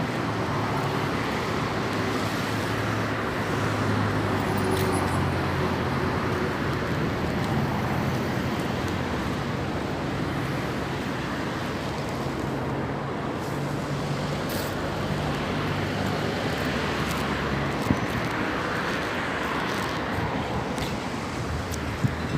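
Steady outdoor noise of road traffic with a low engine hum, under strong wind.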